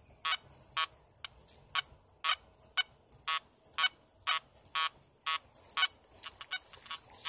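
Makro Multi Kruzer metal detector in four-tone mode at 14 kHz giving short repeated target beeps, about two a second, as its coil sweeps back and forth over a buried test dime. Near the end the beeps turn fainter and choppier.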